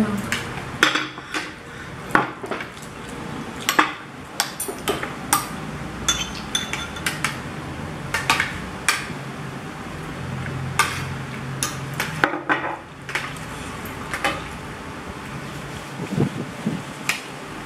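Metal forks and spoons clinking and scraping against ceramic plates and bowls during a meal, in irregular, sharp clinks.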